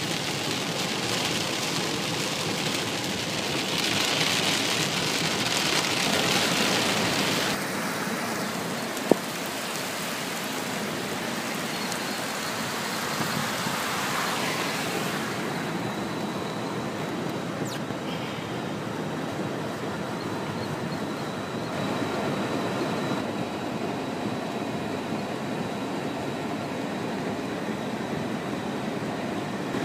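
Heavy rain pelting a car's roof and windshield, heard from inside the cabin, over the hiss of the car moving on the flooded road. The noise changes character abruptly a couple of times, and there is one sharp click about nine seconds in.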